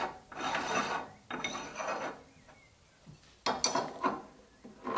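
Threaded die ring being screwed by hand onto a pasta extruder's metal barrel, the threads rasping in two long strokes over the first two seconds. About three and a half seconds in, a cluster of sharp clicks comes from metal machine parts being handled.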